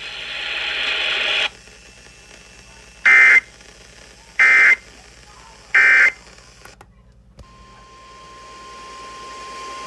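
NOAA Weather Radio broadcast: a burst of static hiss, then three short warbling bursts of EAS/SAME data tones about a second and a half apart, the end-of-message code closing an alert. After a brief dropout, the steady 1050 Hz weather radio alert tone starts about seven seconds in over a slowly rising hiss, opening the next warning.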